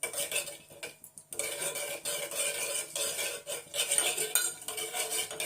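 A spoon stirring and scraping in a small pot, with irregular clinks against its sides, as camphor pieces are mixed into hot ghee to melt them. There is a short pause about a second in.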